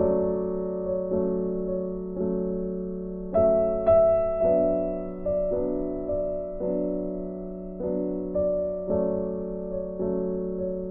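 Background music: a gentle piano tune with notes struck about once a second and left to fade.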